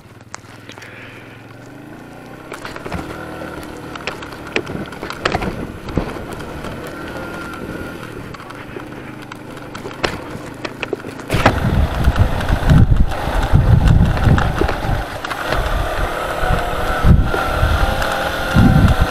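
Small single-cylinder motorcycle running as it rides up a loose, stony dirt track, with stones clicking and crunching under the tyres. About eleven seconds in the sound turns much louder, with a heavy low rumble.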